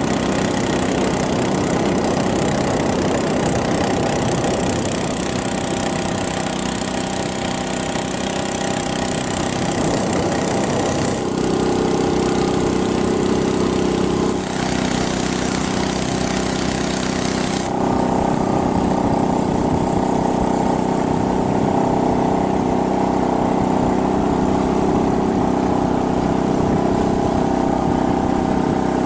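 Small boat motor pushing a wooden longboat along at speed, running steadily, with the rush of water and wind over it. Its note shifts a few times, about a third of the way in and again a little past halfway.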